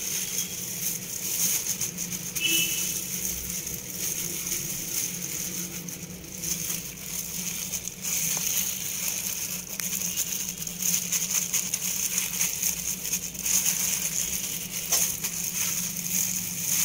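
Chicken being pressed and turned in a bowl of dry flour by a hand in a thin plastic glove: a soft crunching rustle of flour with the glove crinkling, swelling and easing with each press, over a steady low hum.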